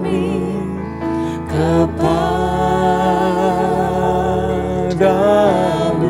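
Slow Indonesian worship song: a voice singing with vibrato over held chords, sustaining one long note through the middle.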